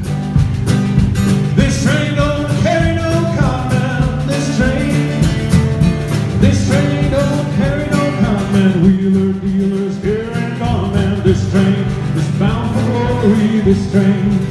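Two acoustic guitars strummed in a steady, upbeat country-folk rhythm, with a man's voice singing over them.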